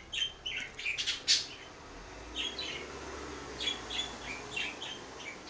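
A bird chirping repeatedly in short, quick calls, with one brief sharp sound about a second in.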